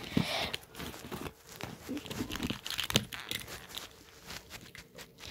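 Rustling and crinkling of a shiny backpack's fabric pocket as a hand rummages inside it, with light clicks of plastic markers and pens being taken out, the sharpest about three seconds in.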